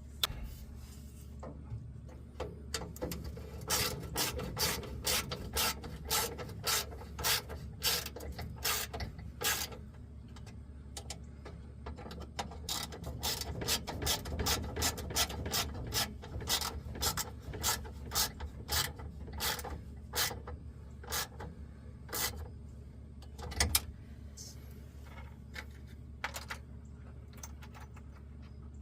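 Hand ratchet wrench clicking in steady, even strokes, about two a second, with a low steady hum underneath. The clicking stops a few seconds before the end.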